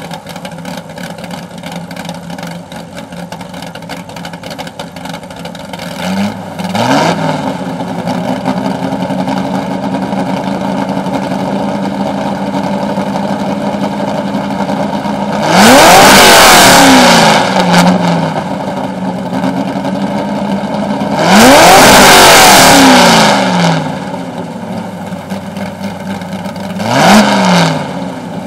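Ford GT40 replica's V8 idling through its centre-exit exhaust. It is blipped briefly about six seconds in and revved hard twice, for about two seconds each time, around halfway and again about six seconds later. It gets one more short blip near the end.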